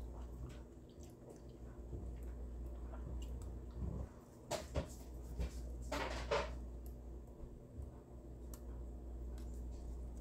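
Plastic blueberry clamshell being handled and berries dropped onto soft oat batter: faint rustles and small taps over a steady low hum, with two louder handling noises about four and a half and six seconds in.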